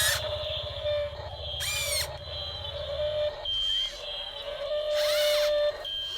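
Electronic beeping: a steady held tone broken into long notes, short high beeps, and quick rising-and-falling whistle sweeps, over a low pulsing rumble that fades out about halfway through.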